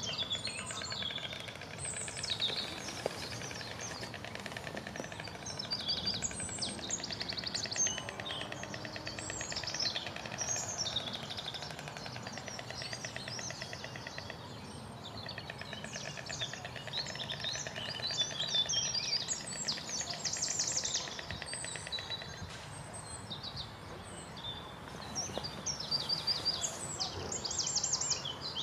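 Small songbirds singing and calling together: a dense mix of high chirps and quick trills over a steady background hiss.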